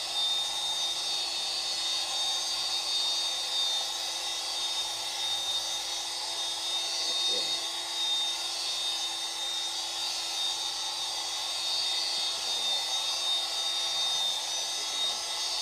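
Variable-speed electric polisher running steadily with a high-pitched whine, its disc working the surface of a porcelain slab to remove a scratch.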